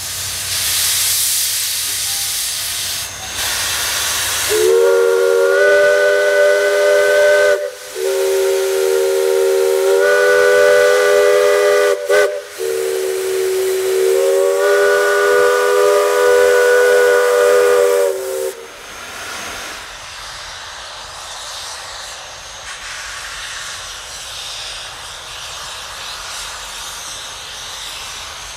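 East Broad Top No. 16, a narrow-gauge 2-8-2 steam locomotive, venting steam with a loud hiss from its open cylinder cocks, then sounding its whistle in three long blasts, several notes at once, over about fourteen seconds. A softer steady steam hiss follows as it pulls away.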